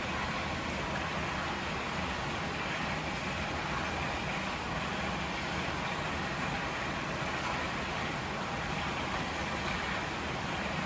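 Steady, unbroken rush of flowing water from a river and hot-spring water running into the bath, an even hiss with no distinct splashes.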